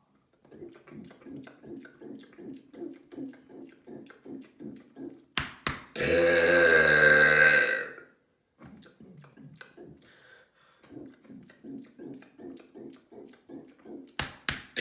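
A man's really loud, drawn-out burp about six seconds in, lasting about two seconds. Before and after it comes a rapid run of short, low pulses, about four a second, and another burp starts just at the end.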